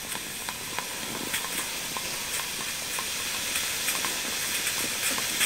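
Home-made double coffee maker hissing out steam, with irregular sharp spitting pops, as its heating elements boil the water off into vapour instead of brewing.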